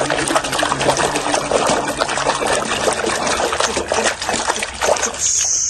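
Water splashing and trickling as a toy is washed in it by hand, with a dense, uneven churn of small splashes.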